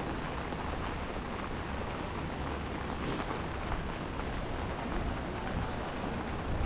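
Steady rushing of water, a constant even roar of falling or flowing water such as a waterfall or fast stream.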